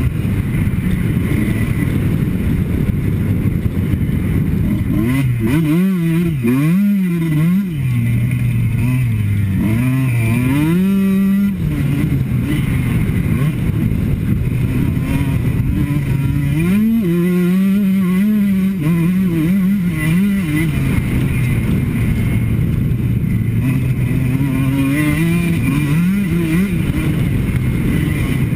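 Two-stroke motocross bike ridden hard, its engine pitch rising and falling over and over as the throttle is opened and shut, with buffeting noise on the helmet-mounted camera.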